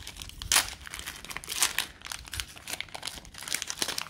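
Trading card pack wrapper crinkling and tearing as it is opened by hand: a quick, irregular run of crackles.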